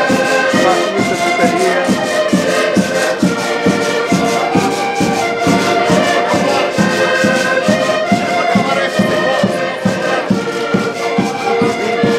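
Several Portuguese concertinas (diatonic button accordions) playing a lively traditional tune together, held melody notes over a steady bass-and-chord beat of about four strokes a second.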